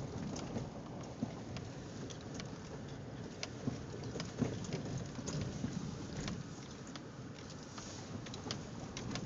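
Vehicle tyres rolling slowly over a gravel and dirt road, heard from inside the cab: a low rumble with many scattered crunches and pops of small stones.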